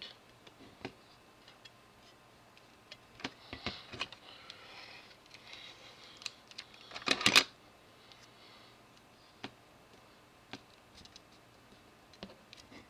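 Low-tack masking tape being handled and torn: scattered light clicks and soft rustles, with one short, loud rip about seven seconds in.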